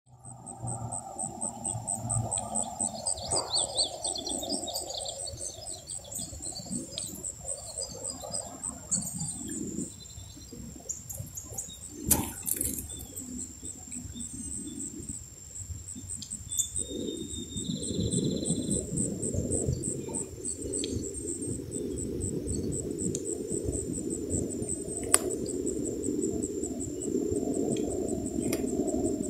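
Garden ambience: a steady, high, pulsing insect chorus of crickets or katydids runs throughout, with a few small bird chirps near the start. A low rushing noise grows louder about halfway through, and a few sharp taps stand out.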